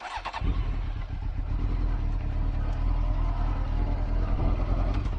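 Honda CBR900 Fireblade's inline-four engine running steadily as the motorcycle rides along, a continuous low rumble that cuts in about half a second in.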